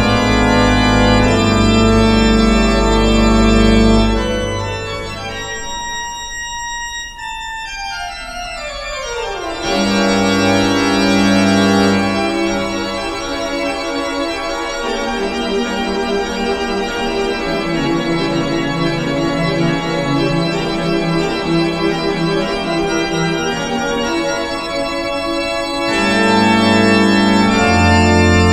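Pipe organ playing sustained chords. A full chord with deep pedal bass is released about four seconds in and dies away in the hall's reverberation; quieter chords enter about ten seconds in, and the sound swells again with bass near the end.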